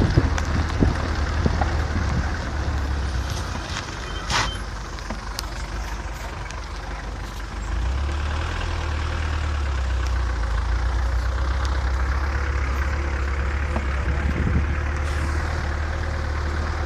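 Cabin noise of a vehicle driving on a rough, potholed dirt road: a steady low engine and road rumble with scattered knocks and rattles as it jolts over the surface. There is a sharp clatter about four seconds in, and the rumble grows louder about eight seconds in.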